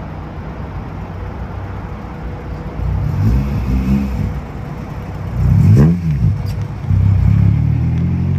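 Honda Integra Type R's four-cylinder engine idling, then blipped twice and revved once harder near the middle, the revs rising and falling quickly. It settles into a steady, slightly higher running note near the end.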